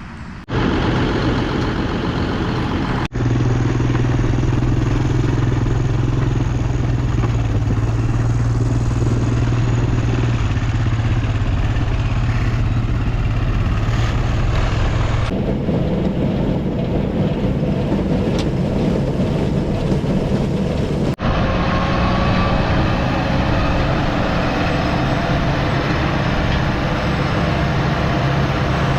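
Tractor engine and pull-type forage harvester running steadily under load while chopping corn, a loud even drone. It breaks off and resumes abruptly several times.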